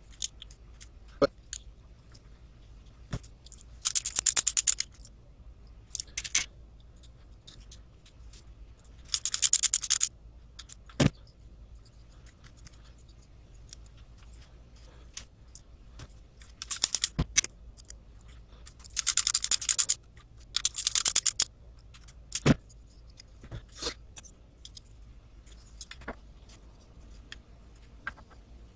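Black plastic RC truck kit parts and a ladder-frame rail being handled and fitted together: single sharp knocks as pieces are set down or tapped, and five short bursts of rapid clicking and rattling.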